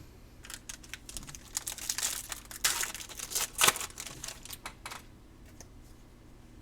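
Foil wrapper of a trading-card pack crinkling and tearing as the pack is opened by hand. The crackling is busiest in the first four seconds, with one sharp loud crackle partway through, then dies down.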